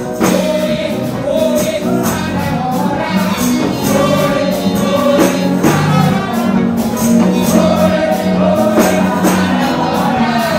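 Gospel song sung into a microphone over a band, with a steady beat of high percussion strokes and sustained low bass notes.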